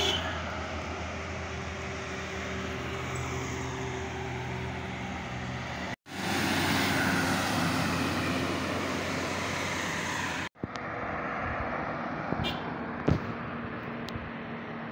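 Diesel engines of heavily loaded trucks running as they pass along a highway, with tyre and traffic noise. The sound breaks off abruptly twice and picks up again, and a single sharp knock is heard near the end.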